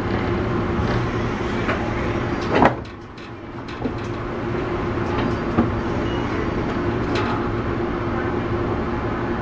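Interior sound of a JR West 117 series electric train in its motor car: a steady mechanical hum with a few knocks and clatters, the loudest about two and a half seconds in, followed by a brief dip.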